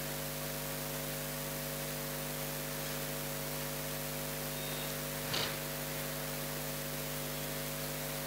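Steady electrical mains hum with a constant hiss, as on a sound-system line with no one speaking. A brief faint noise comes about five seconds in.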